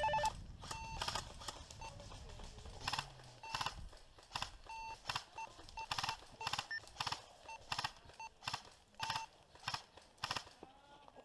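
Handheld two-way radio giving a string of short electronic beeps and clicks, irregularly spaced at roughly two a second.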